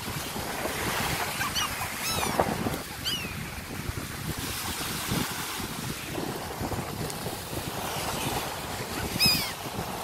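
Gulls crying overhead: a few short calls between about one and a half and three seconds in, and a louder call near the end. Under them, steady surf and wind on the microphone.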